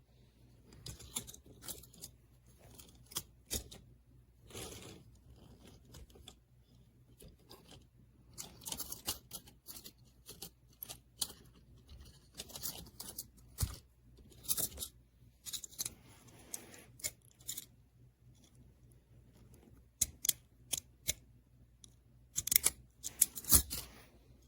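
Small die-cast metal toy tractors and trailers being handled: scattered sharp clicks, taps and light rattles that come in clusters with short pauses between.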